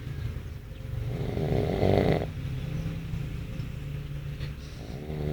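Snoring in a slow rhythm: a loud snore about a second in that lasts just over a second, another starting near the end, and a quieter low rumble of breath between them.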